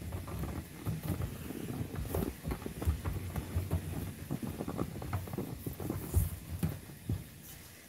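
Irregular soft knocks and thumps of handling around a stainless steel mixing bowl of dumpling dough, dying away near the end.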